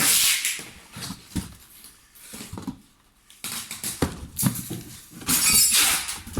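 Handling noises with the grinder switched off: irregular bursts of rustling with a couple of sharp knocks, and no motor running.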